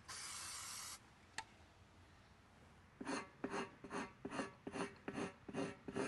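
Aerosol pre-buff cleaner sprayed onto a tire's inner liner in one hiss of about a second, a click, then a hand scraper rasping over the wet rubber in short repeated strokes, about two or three a second, starting about three seconds in: the liner being scraped clean of the mold-release silicone left from manufacture.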